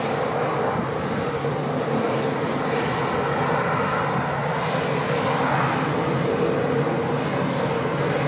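Swiss Airbus A319's twin CFM56 turbofan engines running at low taxi power as the airliner rolls slowly, a steady, even jet noise with a constant hum and no spool-up.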